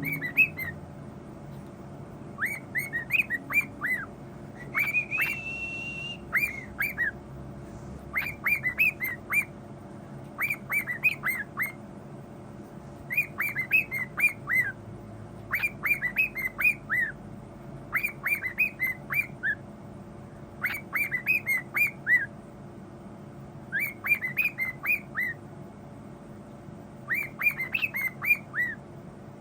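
Pet bird whistling a short phrase of quick chirps over and over, about every two seconds, with one longer held whistle note about five seconds in.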